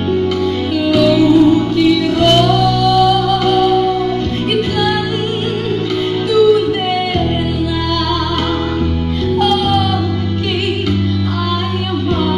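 A woman singing a slow song into a handheld microphone, holding long notes with vibrato, over steady sustained backing chords that change every second or two.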